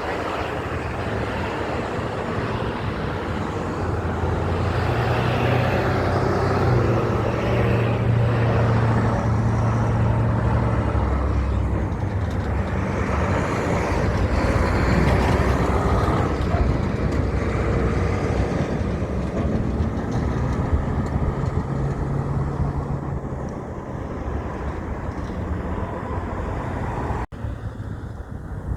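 Heavy trucks driving past: a low engine drone and road noise that build up over the first half, then ease off, with a brief cut-out near the end.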